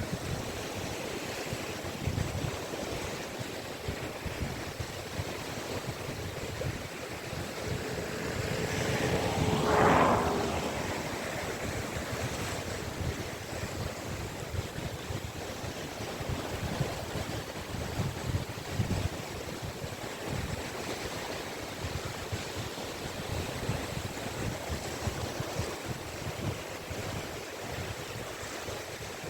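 Caspian Sea waves washing onto the beach in a continuous hiss of surf, with wind buffeting the microphone in low gusts. About ten seconds in, one wave builds up louder and breaks.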